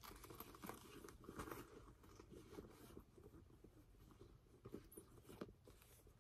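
Faint rustling and soft scattered clicks of small pouches and a wallet being handled and tucked into a handbag.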